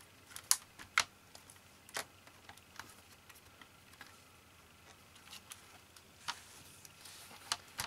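Scattered small, sharp clicks and taps of metal and plastic parts as the internal drive and frame assembly of an opened Mac Mini is handled and seated.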